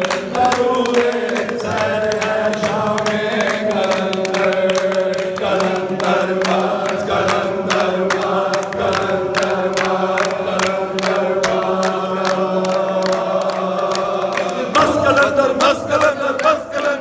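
A group of men chanting a devotional manqabat together, led by a singer on a microphone, with long held notes and constant hand clapping. About three-quarters of the way through, the chant breaks into louder, more ragged crowd shouting.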